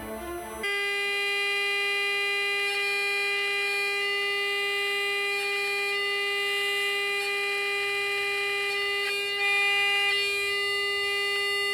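Steady test tone with strong overtones from the Tecsun 2P3 AM radio kit's speaker as it receives the signal generator's modulated signal during alignment. It starts suddenly just under a second in, swells slightly near the end, and cuts off abruptly.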